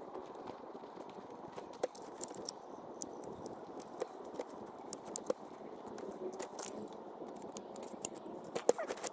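Scattered metal clicks, clinks and knocks as a small folding camping gas stove is unfolded, its pot supports swung out and a gas canister fitted, over steady wind noise.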